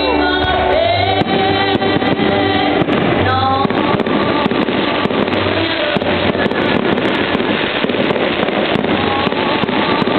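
Fireworks display set to loud music. In the first few seconds the music is clear, with a melody and bass notes. After that, dense crackling and popping from the fireworks takes over, with the music fainter beneath it.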